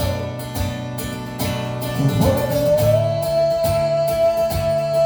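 Worship song music between sung lines: guitar strumming with the band under a long held note that steps up in pitch about two seconds in.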